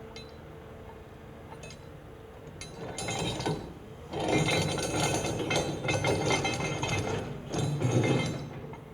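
Cat 323F excavator ripping rock: the ripper tooth grinds and clinks through the stone, starting about three seconds in, loudest through the middle and again near the end, over a steady engine tone.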